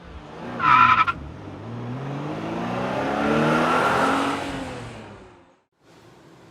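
A short, loud tire squeal, then a car engine revving up and fading away.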